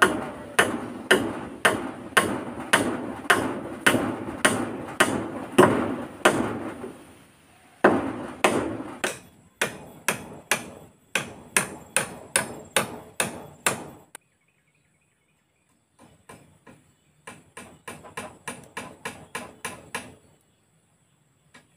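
Hammer blows on the wooden beams of a pole-hut frame, steady strikes about two a second in several runs with short pauses; the last run, about two thirds of the way in, is fainter.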